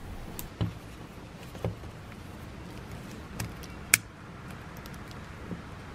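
A few small clicks and taps, about four of them, the sharpest about four seconds in, over low steady room noise: multimeter probe tips being handled against the metal prongs of a power cord plug.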